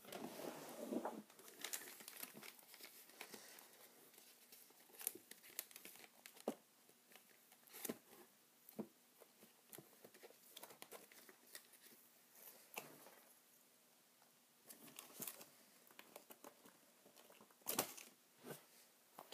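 Faint, scattered rustling of paper with light clicks and knocks from a plastic storage drawer being searched through for a sheet of paper.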